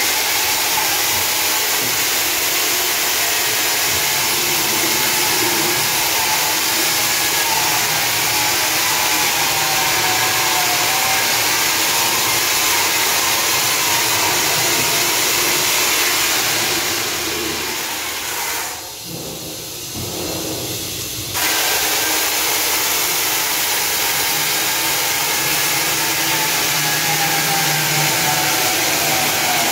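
Electric diamond chainsaw cutting into a concrete wall: a steady, loud grinding hiss over the motor's whine, whose pitch wavers as the cut loads it. About two-thirds of the way through the sound drops away for about two seconds, then returns at full level.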